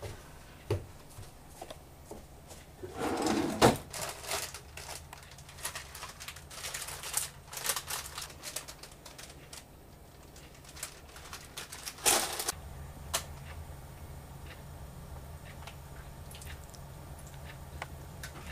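Kitchen handling noises: knocks and the crinkling of a plastic cookie wrapper being handled and opened, with a loud knock about twelve seconds in, followed by a steady low hum.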